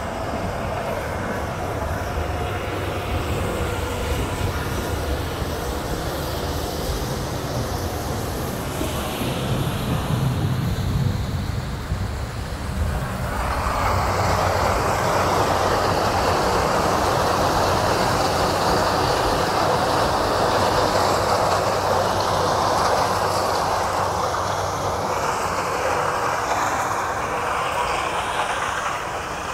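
John Deere X9 1100 combine harvesting corn with a tractor and grain cart running beside it: a steady low machinery rumble. About thirteen seconds in, a loud, even rushing hiss joins it and carries on: shelled corn pouring from the combine's unloading auger into the grain cart.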